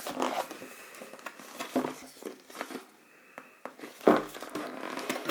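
Tablet packaging being handled and unwrapped: plastic crinkling and small clicks and knocks, with a louder rustle about four seconds in.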